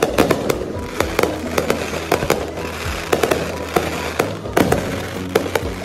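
Aerial fireworks going off: many sharp bangs in quick succession, several a second, with crackling between them.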